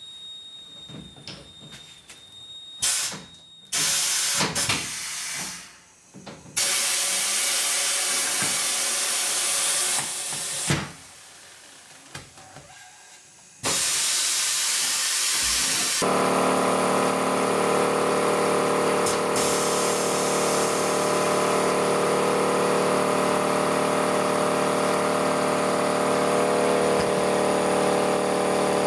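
Pneumatic tire changer letting off compressed air in several separate hissing bursts as its bead breaker and turntable clamps are worked. About halfway through, a Central Pneumatic air compressor starts and runs steadily.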